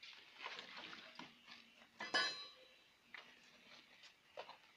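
Faint metallic clinks of tools and steel parts being handled during repair work, with one louder ringing clink about two seconds in.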